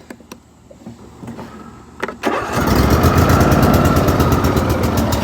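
Riding lawn mower engine starting: a few faint clicks, then about two seconds in the engine catches and keeps running loudly and steadily. It starts after having died mid-mow and failed to turn over on the last try.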